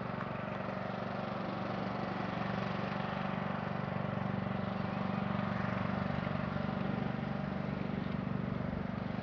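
Riding lawn mower engine running steadily at an even pitch.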